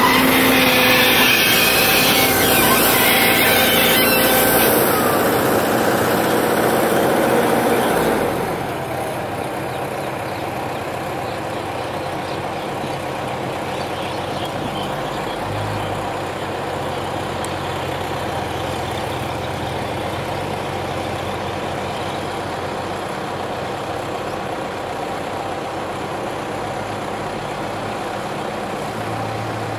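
Kobelco hydraulic excavator's diesel engine running loud and close. About eight seconds in, the sound drops to a quieter, steady diesel engine drone.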